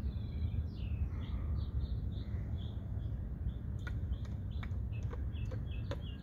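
Birds chirping over and over in short calls, above a steady low rumble. From about four seconds in, sharp clicks come between the chirps.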